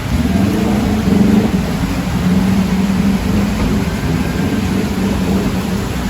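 A motor vehicle's engine running close by, a steady pitched hum over a low rumble, with a slight swell about a second in.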